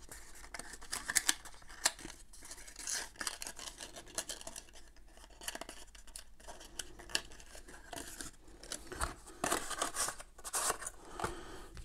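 Cardboard packaging insert and paper inserts being handled and folded: scattered short scrapes, rustles and small clicks of cardboard, fairly quiet.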